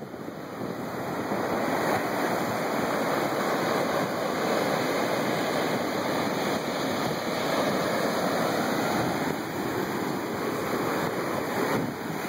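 Ocean surf breaking and washing over a flat rock shoreline, a steady rush of waves.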